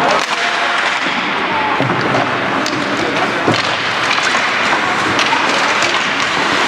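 Ice hockey game in play: a steady din of rink noise with scattered sharp clacks of sticks and puck, and a heavier thud about three and a half seconds in.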